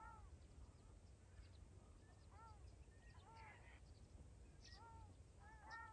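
Ruddy shelducks calling: faint, nasal, goose-like honks, each a short note that rises and falls. They come at irregular intervals, about six in all, with a couple in quick succession near the end.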